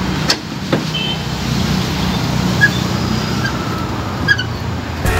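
A vehicle engine running steadily with a low hum, with a few short clicks of a screwdriver working at the headlight's fasteners.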